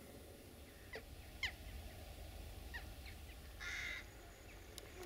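A crow giving one harsh caw about three-quarters of the way through, after a few short falling chirps, all faint over a low rumble.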